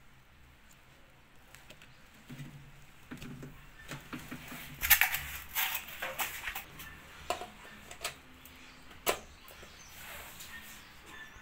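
Irregular clicks and knocks of parts being handled while a washing machine is taken apart, with the loudest knock about five seconds in and a sharp click about nine seconds in.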